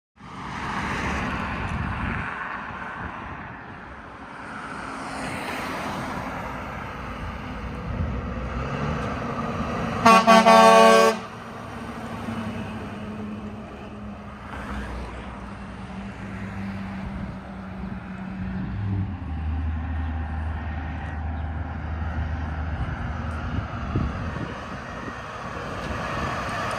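Road traffic passing, with one loud truck horn blast lasting about a second near the middle, followed later by the deep, low drone of a heavy vehicle's engine going by.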